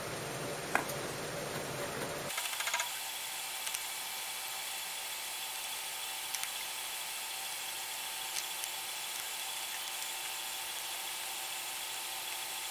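A few scattered clicks and light metallic knocks from hose-clamp pliers and a spring hose clamp as a radiator coolant hose is pushed back on and clamped, over a steady hiss. The sharpest click comes about a second in, with a quick cluster just under three seconds in.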